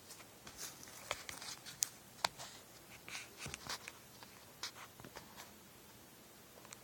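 Hands handling unboxed items and their packaging: light, irregular rustling with a few sharp clicks and taps, the sharpest in the first two and a half seconds.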